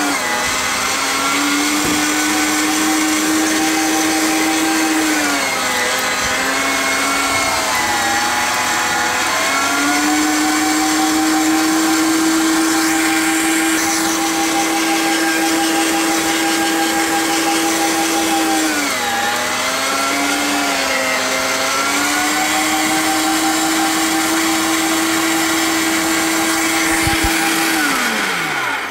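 Electric meat grinder's motor running with a steady whine. Twice its pitch sags for a few seconds as it bogs under the meat being pushed through. Near the end it winds down as it is switched off.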